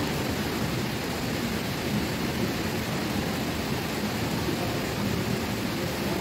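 Steady rain on a sheet-metal roof, an even, unbroken rush of noise.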